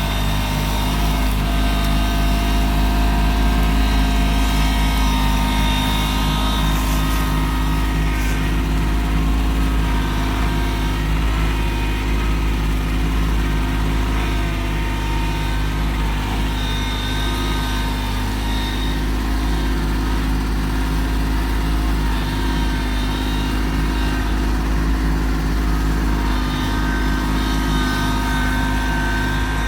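Kubota LX2610 compact tractor's three-cylinder diesel running steadily at working throttle, its pitch shifting slightly now and then.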